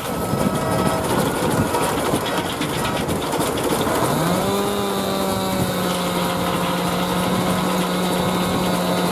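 Steam traction engine driving a circular saw bench by a flat belt: a rough noisy stretch at first, then about four seconds in the saw's hum rises in pitch and settles into a steady tone as the blade runs free up to speed.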